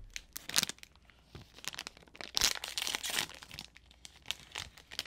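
Plastic wrapper of an individually wrapped soft chocolate-chip cookie crinkling and being torn open by hand. It goes as a run of small crackles, with a longer tearing rustle about two and a half seconds in.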